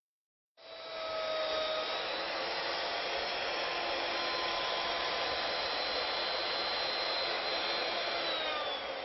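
An electric power tool motor running steadily with a high whine, then spinning down near the end.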